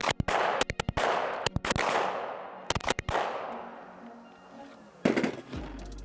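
Gen 3 Glock 17 9mm pistol fired in fast strings of shots, several quick volleys in the first three seconds and one more about five seconds in, each trailing off in a long echo. A low steady hum comes in near the end.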